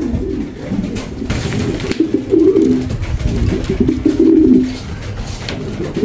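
Domestic pigeons cooing in a loft, a low warbling coo repeated over and over.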